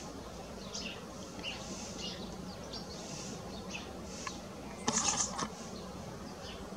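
Small songbirds chirping in short scattered notes, with one louder, harsher burst about five seconds in, over a faint steady low hum.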